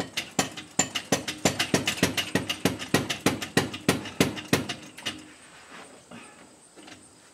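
A jack under the transmission being pumped: quick, even metallic clicks, about four or five a second, lasting about five seconds before trailing off.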